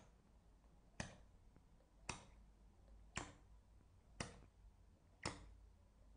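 Hand-pump cupping gun clicking sharply and evenly, five times about a second apart, as it is worked on a suction cup in repeated flash cupping.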